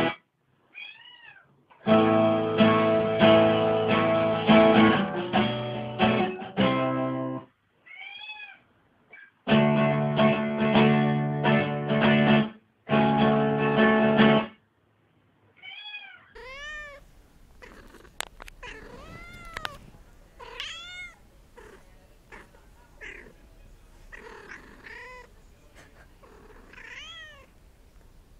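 Acoustic guitar strummed in two short passages, with a cat meowing in the pauses between them. From about halfway through, the guitar stops and a cat meows over and over, each meow rising and then falling in pitch.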